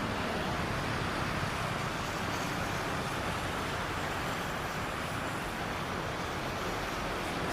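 Steady rushing vehicle noise with no distinct tone, even throughout.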